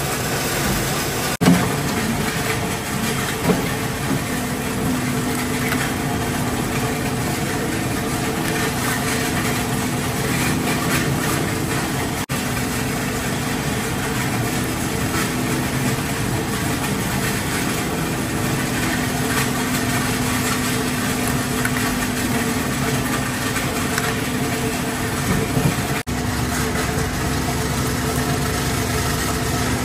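Plastic injection moulding machine running with a steady, even hum over a busy mechanical clatter. Two brief sharp knocks come within the first few seconds.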